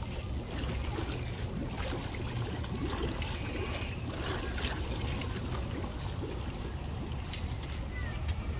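Koi pond water splashing and trickling as a crowd of koi churns the surface, over a steady low rumble.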